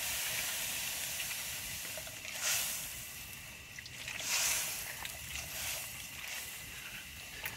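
Shallow hot liquid hissing and sizzling in a wok as a whole raw octopus is dipped in legs first, with louder swells of sizzle and slosh about two and a half and four and a half seconds in.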